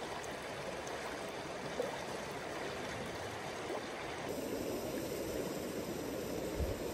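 Stream water running steadily over rocks, an even rushing babble that turns duller about four seconds in.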